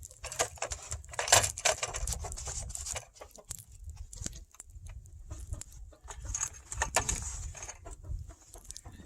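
Backyard hens clucking amid irregular metallic jangling and rattling, busiest about a second in and again near the seven-second mark.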